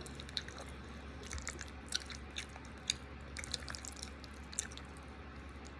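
Faint, wet chewing and lip-smacking from someone eating creamy chicken Alfredo pasta close to the microphone, heard as scattered short clicks.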